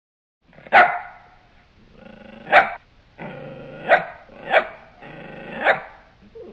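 A dog barking five times, with growling between the barks, then a shorter, softer sound near the end.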